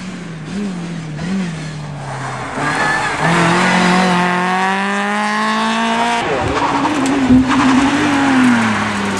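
Rally car engines at full throttle on a tarmac stage: a Volkswagen Polo rally car accelerates hard past, its engine note climbing steadily for about three seconds in one gear before breaking off about six seconds in. Another rally car's engine is then heard revving up and down.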